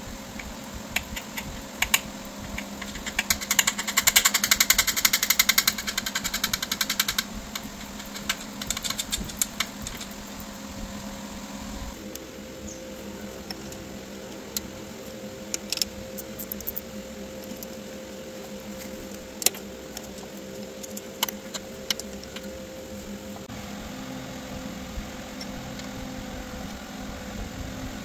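Ratchet wrench clicking rapidly as outboard powerhead mounting bolts and nuts are run down: a fast run of clicks a few seconds in that lasts about four seconds, a shorter run a little later, then scattered single clicks and taps of the tool on metal, over a steady background hum.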